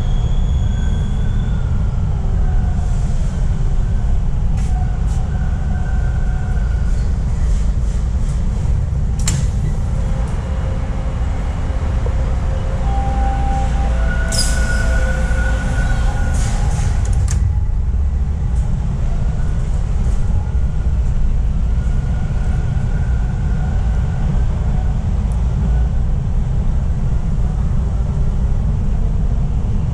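Subway train running, heard from inside the car: a steady, loud low rumble of wheels on the rails. Clicks come about nine seconds in, and a brief higher-pitched wheel squeal with clicks follows about halfway through.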